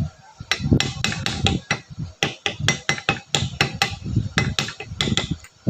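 A rapid series of sharp metal taps, about five a second with two short pauses, as a hammer drives a homemade seal-driver tool to seat the large seal in a power steering box.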